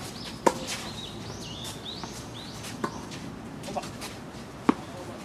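Tennis ball struck by rackets during a doubles rally: sharp pops about half a second in and again near the end, with fainter hits or bounces between. In the first half a bird calls a quick series of short rising notes.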